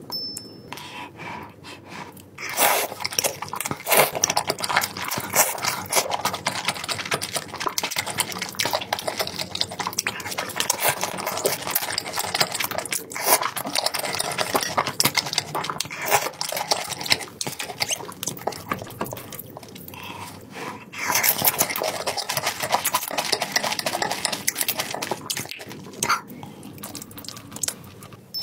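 Close-miked eating sounds: wet chewing, smacking and slurping of food in a thick red sauce, in a dense crackly run. It grows louder about two and a half seconds in and eases off for a moment about two-thirds through. A short high beep sounds right at the start.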